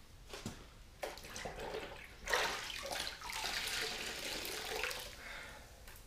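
A wet sponge scrubbing soapy water over a car's painted fender, a soft swishing at first that grows into a louder, steady wet wiping about two seconds in and fades near the end.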